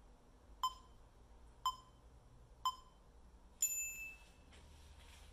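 Countdown timer beeps: three short beeps a second apart, then one longer, higher beep that marks the end of the timed interval.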